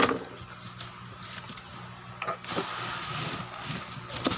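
Plastic clicks and knocks from a Bluetooth speaker's casing being handled and opened, with one sharp knock at the start and a few lighter clicks after, over a steady low hum.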